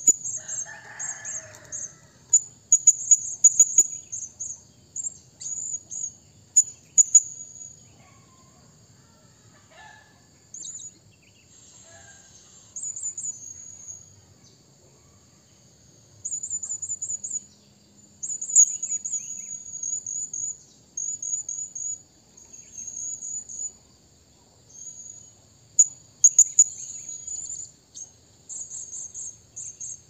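Blue-crowned hanging parrot calling: runs of short, very high-pitched chirps, each run lasting a second or two, with pauses of a few seconds between runs.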